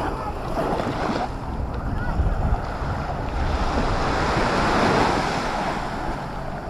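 Black Sea waves washing onto the beach, one surge swelling louder about halfway through, with wind rumbling on the microphone.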